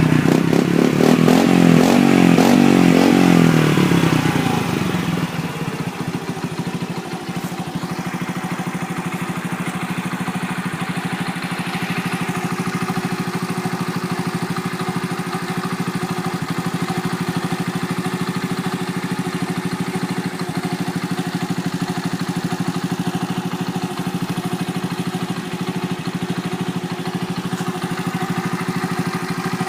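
Honda Little Cub's small single-cylinder four-stroke engine breathing through a Takegawa Bomber aftermarket muffler: revs falling away over the first few seconds, then settling into a steady idle.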